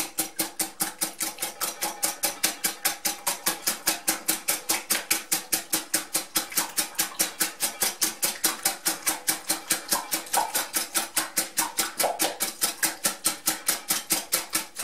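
Wire whisk beating eggs and milk in a glass bowl: a fast, even run of clicks and swishes, about five strokes a second, which stops right at the end.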